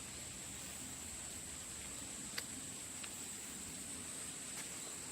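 Quiet outdoor ambience: a steady high-pitched drone with a few faint clicks.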